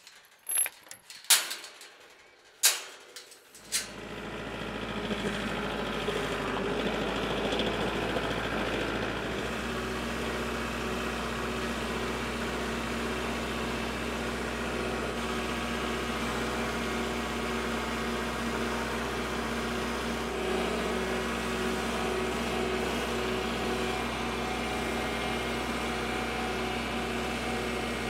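A few sharp clicks and knocks, then a Kubota tractor's diesel engine comes on suddenly about three and a half seconds in and runs steadily.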